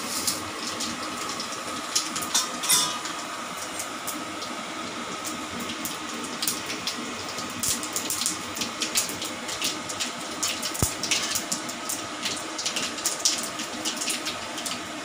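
A tempering of mustard seeds, cumin, fennel, urad dal and fenugreek frying in hot oil in a wok: a steady sizzle with many sharp pops as the mustard seeds splutter, the pops coming thicker in the second half.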